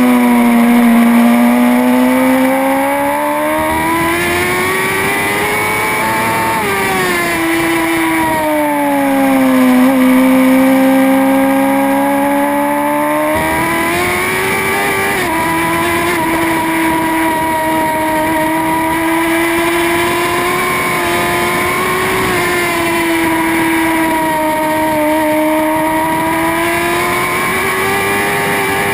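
On-board sound of a racing motorcycle's engine at speed: the revs fall and climb again slowly twice, then hold fairly steady at a high pitch with slight wavering.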